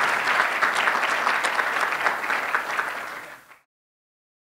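Audience applauding, a dense patter of many hands clapping, which fades and then cuts off abruptly about three and a half seconds in.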